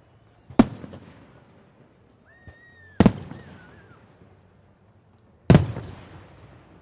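Fireworks display: three aerial shell bursts about two and a half seconds apart, each a sharp bang trailing off in a rumbling echo. A brief wavering high whistle sounds between the first and second bangs.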